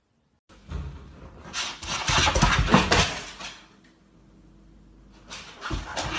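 Noises from a Siberian husky at close range: a long, rough, uneven stretch starting about half a second in, then a shorter one near the end.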